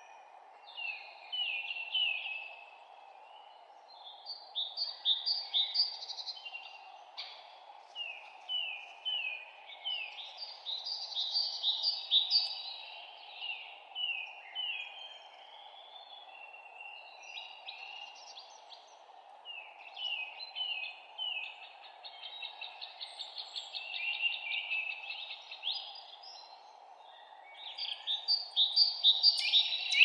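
Songbirds singing in short phrases, each a quick run of repeated chirps, the phrases coming every few seconds and loudest near the end, over a steady low hiss.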